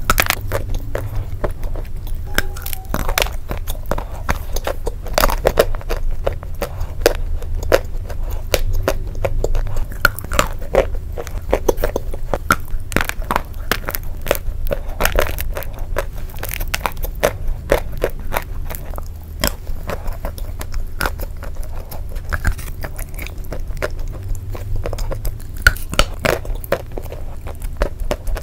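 Close-up biting and chewing of dry Turkestan clay and chalk coated in paste: soft crunches and crisp crackles as the lumps break up in the mouth, continuous and irregular.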